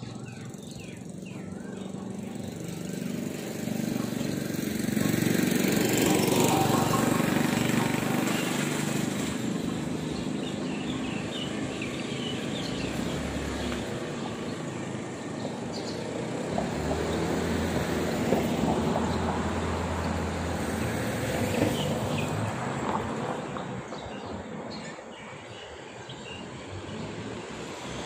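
Road traffic going by, with two vehicles passing louder: the noise swells and fades about six seconds in and again around nineteen seconds in.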